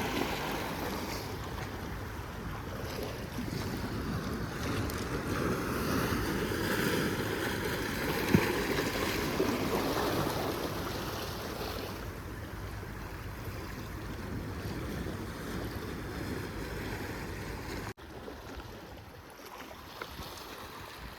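Wind rushing across the microphone at the waterside, a steady noise that eases after about twelve seconds and drops suddenly near the end, with a single sharp knock about eight seconds in.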